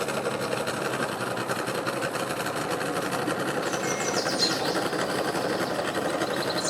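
Boat engine running at idle near the ramp, a steady rapid rattle.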